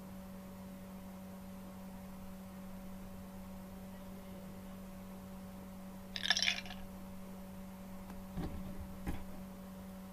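Steady electrical hum. About six seconds in there is a brief scrape, then two soft knocks, as a wooden spoon stirs gravy in a nonstick pan.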